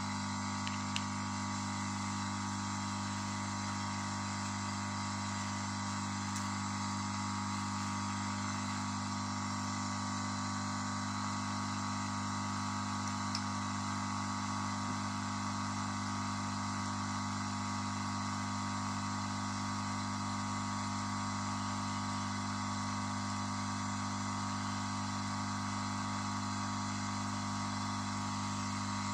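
Steady hum of a hot-air soldering station with its blower running, even and unchanging throughout.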